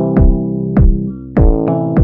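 Background electronic music: a deep kick drum whose pitch drops sharply on each hit, on an uneven beat of about two hits a second, over sustained synthesizer and electric-piano chords.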